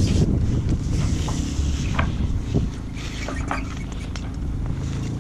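Wind buffeting the microphone as a steady low rumble, with a faint steady hum under it and a few light clicks.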